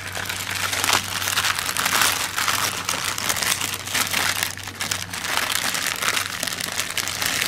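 Plastic packaging of a diamond painting kit crinkling and rustling as bags of drills and the wrapped canvas are handled, in a continuous run of small crackles. A steady low hum sits underneath.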